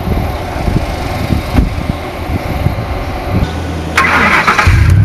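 Pickup truck engine started about four seconds in: a brief crank from the starter, then the engine catches and settles into a steady idle.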